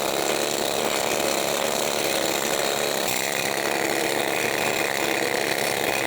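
Needle gun hammering rapidly and steadily at loosened rust scale on the steel hinges of a tank's cupola periscope armoured covers, a dense continuous chatter.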